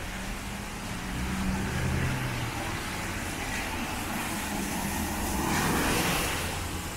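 Heavy rain on a city street with a car passing on the wet road. A low engine hum fades about two and a half seconds in, and the tyre hiss swells to a peak around five to six seconds in before easing off.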